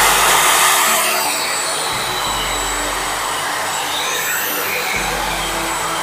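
AGARO Regal 800-watt handheld vacuum cleaner running, a steady rush of air over its motor, a little louder in the first second, as it sucks up scattered bits, powder and dirt.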